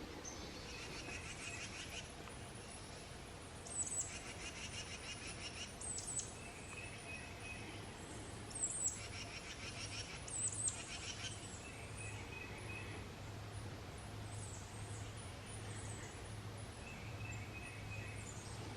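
Songbirds singing: short phrases of high chirps and trills repeating every second or two over a low, steady background.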